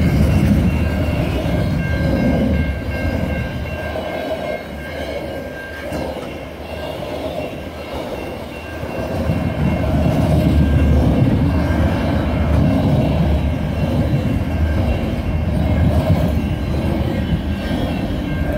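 Slow train rolling past: a steady rumble of wheels on the rails that eases off about six seconds in and builds again from about nine seconds.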